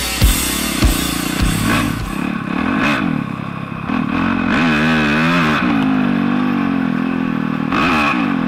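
Motorcycle engine running and revving, with a burst of quick rises and falls in pitch about halfway through and another rev near the end.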